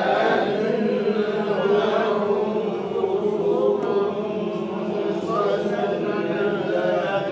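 A group of voices reciting a Quran verse together in unison, in a slow, drawn-out chant with few breaks: the class repeating 'ka-annahum khushubun musannadah' after the teacher.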